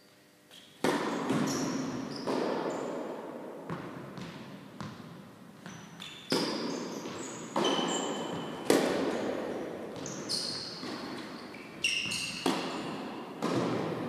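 A tennis rally in a large indoor hall: about a dozen sharp racket strikes and ball bounces, the first loud one (the serve) about a second in, each echoing off the hall. A few short high squeaks come in between.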